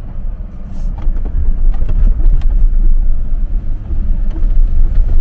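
Jeep Wrangler engine and drivetrain rumbling from inside the cabin as it drives over snow, getting louder about a second in.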